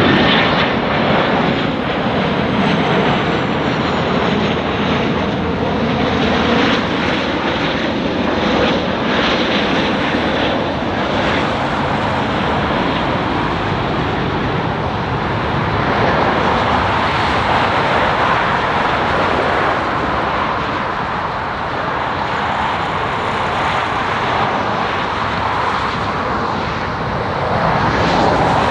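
Rolls-Royce BR715 turbofans of a Boeing 717 landing: a loud, steady jet roar that swells slightly near the end.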